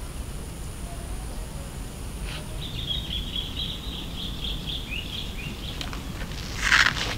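Outdoor ambience with steady low background noise. A bird twitters in a quick run of high chirps for a few seconds, and a short scuffing noise comes near the end.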